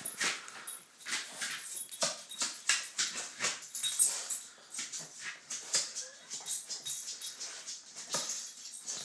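A Yorkshire terrier frantically rubbing and pushing its face along the floor and doormat: rapid, irregular scuffling noises from the dog, stopping abruptly near the end.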